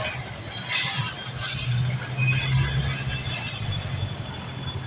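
Busy city street traffic, with a vehicle engine passing close. Its low hum builds from about a second in and holds steady.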